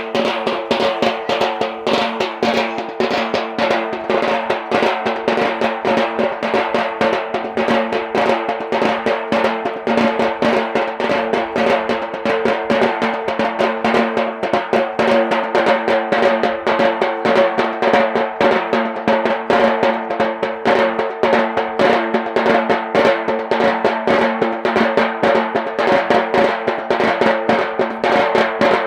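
Drumming for the Yemeni bara' dance: fast, dense drum strokes that keep going without a break, over steady held tones.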